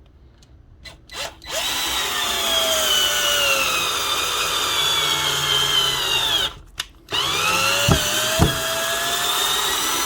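Ryobi HP108L 8-volt cordless drill driving a screw into wood. The motor whine starts about a second and a half in and sags slowly in pitch as the screw bites. It stops briefly about two-thirds of the way through, then runs again with two sharp knocks.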